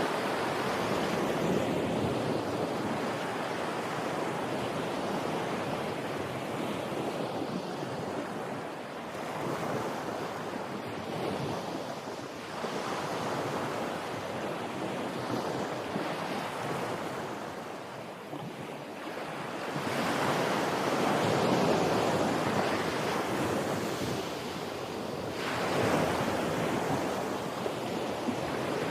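Surf washing in, a steady rushing noise that swells and ebbs every several seconds, with its biggest surge about two-thirds of the way through.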